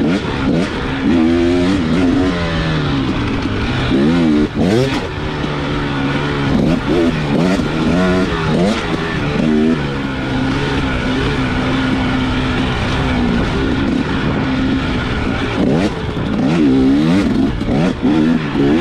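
Enduro dirt bike engine revving up and down repeatedly as it is ridden hard along a trail, holding a steadier pitch for a few seconds in the middle.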